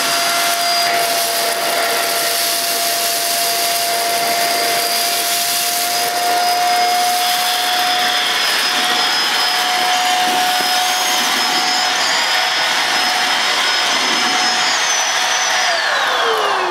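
Bissell Featherweight Pro stick vacuum running with a steady motor whine as it sucks up spilled flour, rice and rolled oats. Its tone shifts about halfway through, a change in the motor that the owner takes for the filter clogging with flour. The whine falls away as it is switched off near the end.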